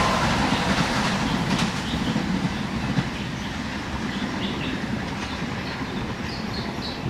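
Train passing and moving away, its wheels clattering over the rail joints with a low rumble, fading steadily.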